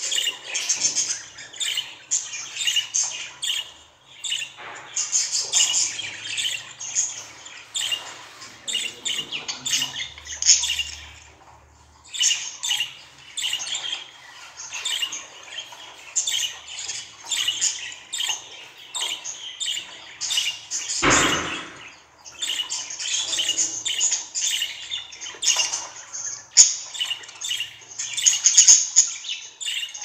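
Female budgerigar chattering and chirping without a break: quick, warbling high chirps with squawky notes mixed in. One short, louder sound comes about two-thirds of the way through.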